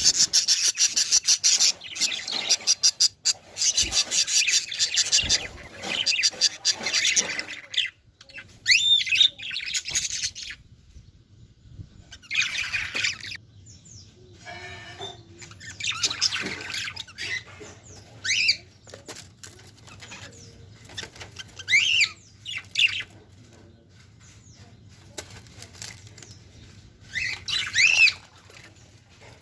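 Parrots: a rapid fluttering rustle for the first several seconds, then short calls that rise and fall in pitch, one every few seconds.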